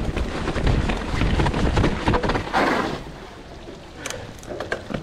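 Wind buffeting an action camera's microphone over the rumble of mountain bike tyres rolling on a wet dirt trail, easing off after about three seconds as the bike slows.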